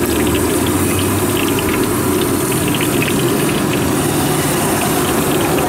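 Mysore bonda batter balls deep-frying in a large iron kadai of hot oil: steady bubbling and sizzling with many small scattered pops, over a low steady rushing noise.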